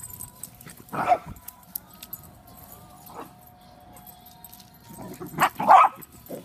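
Puppies barking while playing: one bark about a second in, then two louder barks close together near the end.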